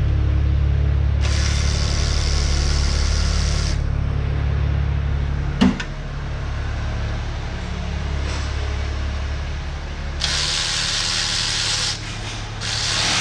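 A steady low mechanical hum runs under three bursts of hissing: one about a second in that lasts a couple of seconds, and two more near the end. A single sharp clack comes about halfway through.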